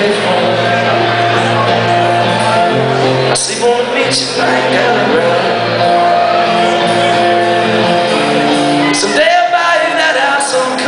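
Live rock band playing loudly: electric guitars and a steady bass line, with shouted vocals.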